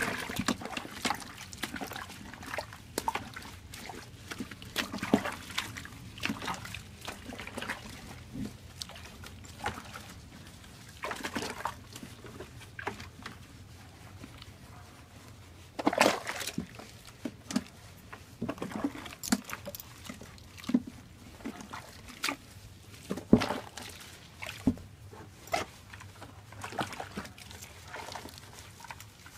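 Water sloshing and splashing in a tub as a dog is scrubbed with hands and a soapy sponge: irregular short splashes and knocks, a few of them louder.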